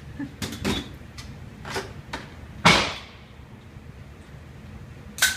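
Metallic clicks and clacks of a Desert Eagle pistol being handled and readied after a jam, with one louder bang that fades briefly about two and a half seconds in and a sharp clack near the end.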